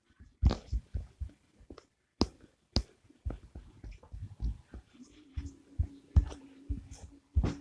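A series of irregular soft thumps and clicks, with a faint steady low hum from about five seconds in until near the end.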